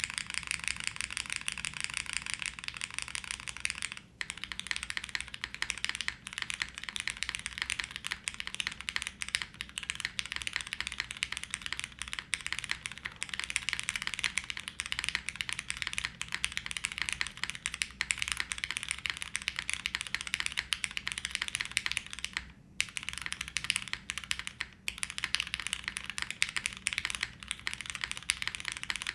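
Continuous fast typing on a Class60 custom mechanical keyboard, plateless and leaf-spring mounted, with lubed and filmed Cherry MX Black linear switches and GMK keycaps: a dense run of keystrokes with a couple of brief pauses.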